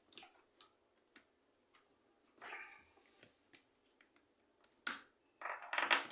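Scattered sharp clicks and short scrapes of a screwdriver, screws and metal parts being handled while an electric fan's motor housing is screwed back together, with a denser run of scraping near the end.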